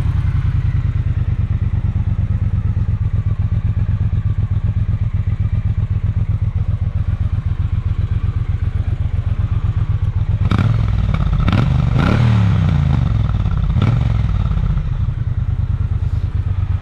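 2018 Triumph Bonneville T120's 1200 cc parallel-twin engine idling steadily on its stock exhaust, just after being started. Another vehicle passes on the road about ten to fourteen seconds in, briefly rising and falling in pitch over the idle.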